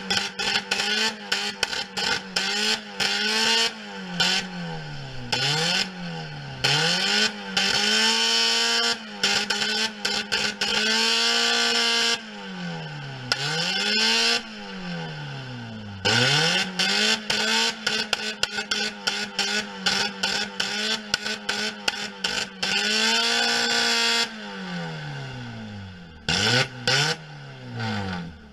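Citroën AX engine being thrashed while the car sits stationary, held flat out at very high revs for long stretches. The revs repeatedly drop to about half and climb back up, with a harsh, choppy edge at full revs.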